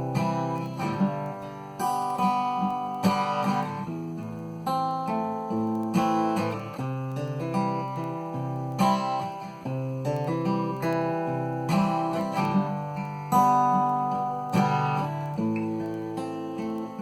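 Cort GA5F-MD acoustic guitar, with a solid European spruce top and Madagascar rosewood back and sides, played fingerstyle. Plucked chords and single notes come about once a second, each ringing and fading before the next.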